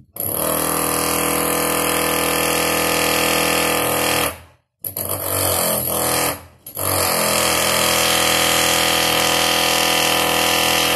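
A loud electric-motor machine running at a steady pitch, stopping briefly twice around the middle before running on.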